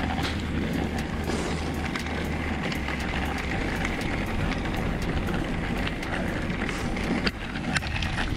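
Wind buffeting and rushing over a camera microphone while riding a bicycle, with a steady deep rumble and frequent small crackles.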